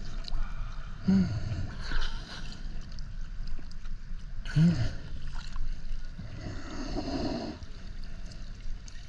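Water sloshing and gurgling around the camera as a diver swims, with two short vocal sounds, about a second in and halfway through.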